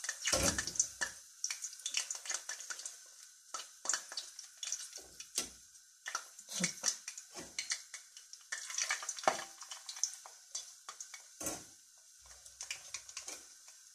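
Egg-dipped fish pieces frying in plenty of hot vegetable oil, a steady sizzle, with repeated clicks and clinks of metal tongs against the bowl and pan as pieces are dipped and laid in.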